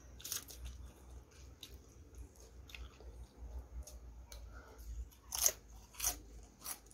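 Close-up crunching and chewing of tortilla chips topped with sloppy joe meat: soft crunches at first, then three loud crunches in the last two seconds.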